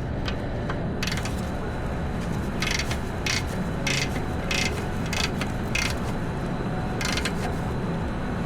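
Torque wrench ratcheting in short bursts of clicks, running the clutch pressure plate bolts down toward 30 ft-lb.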